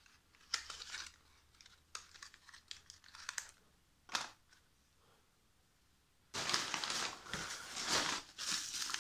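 Light handling sounds as a spark plug is slid back into its small cardboard box, then one sharp tap just after four seconds in as the box is set down on a tiled floor. From about six seconds in, crumpled packing paper rustles and crinkles steadily as hands dig through it in the carton.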